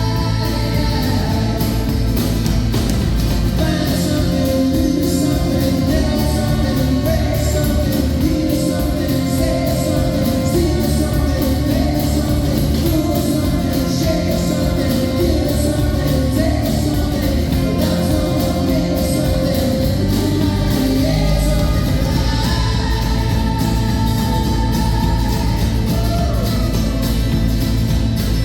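Live music: a singer's voice over a full band with guitar, played in a large reverberant hall.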